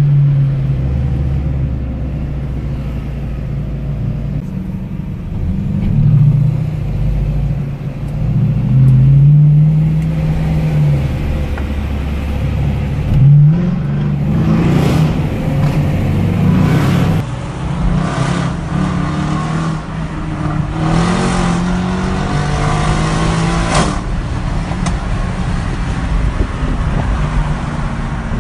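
Mercedes C63 AMG Black Series 6.2-litre V8 rumbling at low revs in traffic with its revs rising and falling, then, from about halfway, running through several hard accelerations with the pitch climbing each time.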